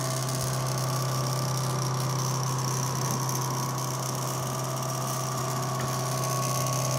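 Stepper motor on a Sherline CNC mill driving the table slowly along its lead screw at a feed rate of 30: a steady low hum with fainter high whines above it.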